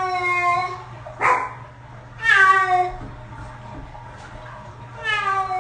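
Domestic cat yowling in protest at being bathed: long, drawn-out meows that fall in pitch, three of them, with a short sharp cry about a second in.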